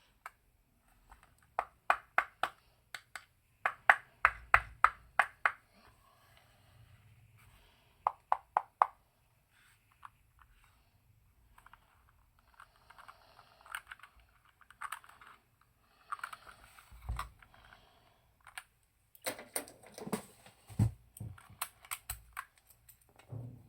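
Keystrokes on an aluminium-cased Mad68 HE mechanical keyboard with Gateron Pink Jade Pro magnetic switches: short runs of sharp clacks, about four to six a second, broken by pauses, with a few deeper thuds about two thirds of the way in and near the end.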